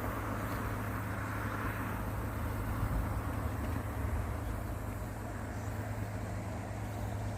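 A steady low mechanical drone with an even rushing noise over it.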